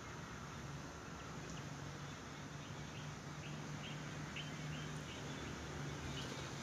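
A small bird chirping, short high chirps repeating about twice a second in runs, over a faint steady low hum.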